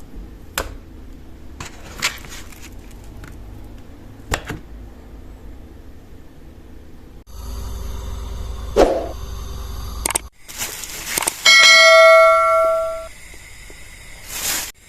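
A few sharp clicks or knocks, then a loud bell-like metallic ring about two-thirds of the way in that fades over a second or so.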